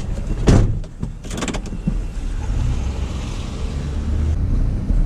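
A few clunks and clicks, the loudest about half a second in, then a vehicle's engine and road noise running steadily as it drives.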